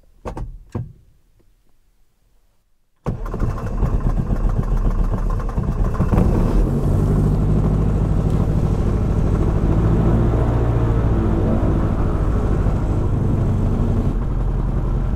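Grob 109A motor glider's four-cylinder Limbach engine being started: a couple of clicks, then about three seconds in the engine catches abruptly and runs, settling into a steady idle with the propeller turning.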